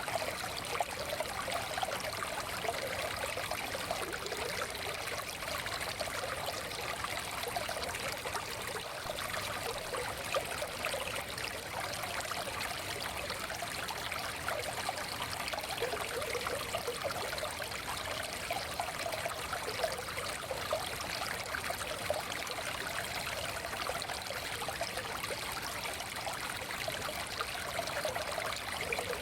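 Small forest stream flowing steadily over rocks, with a constant trickling and babbling.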